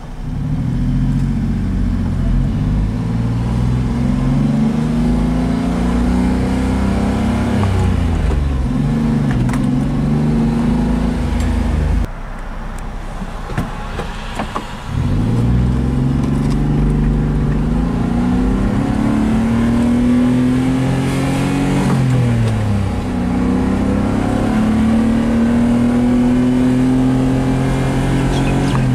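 Honda Acty truck's small three-cylinder engine, heard from inside the cab, pulling up through the gears. Its pitch climbs and drops back at each upshift, with a quieter, lower stretch a little before halfway.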